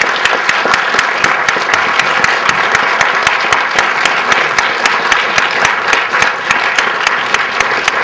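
Audience applauding: a dense, steady patter of many hands clapping.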